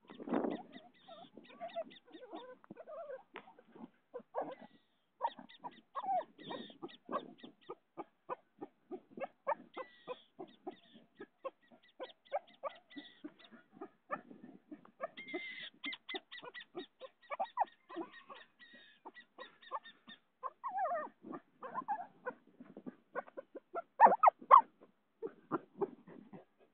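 Dog with its head down a hole in the ground, snuffling hard in quick short strokes, about three a second, with a few short whines, the loudest near the end.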